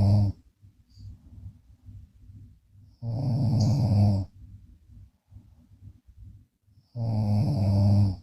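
A woman snoring in a steady rhythm, one low buzzing snore of about a second every four seconds or so: the end of one just at the start, a full one about three seconds in, and another beginning near the end. Faint breathing sounds come between the snores.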